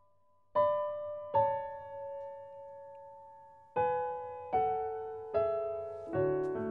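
Slow, soft piano music: single notes struck one at a time, each left to fade, stepping down in pitch, with lower notes joining in near the end.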